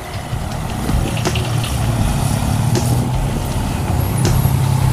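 Large motor scooter's engine running as it rides up close, growing steadily louder towards the end.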